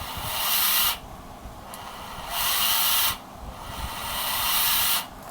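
Hitachi cordless drill run in three short bursts, its motor giving a high whirring noise each time the trigger is pulled. The drill is a little noisy inside, which the seller puts down to needing a cleaning.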